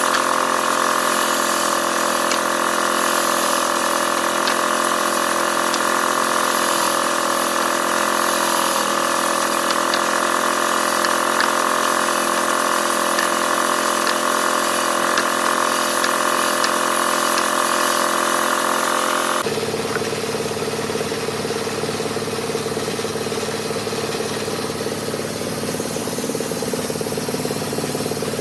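Woodworking machine running steadily with a constant hum and whine, cutting wooden legs; about two-thirds of the way through the sound changes abruptly to a lower, different steady machine noise.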